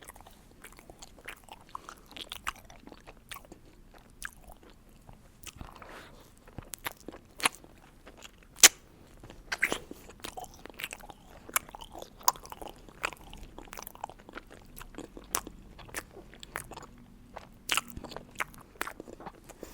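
Close-miked chewing of a filled planet gummy candy: irregular sharp mouth clicks and crunchy bites. The sharpest comes about eight and a half seconds in.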